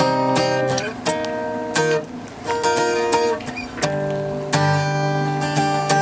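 Acoustic guitar strumming chords, each strum left to ring before the next.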